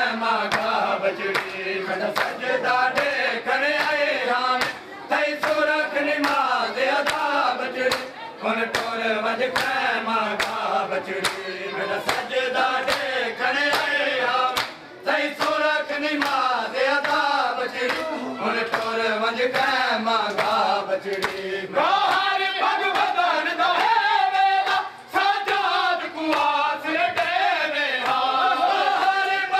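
A group of men chanting a Muharram nauha (lament) together, with rhythmic sharp slaps of hands striking chests (matam) about one to two beats a second.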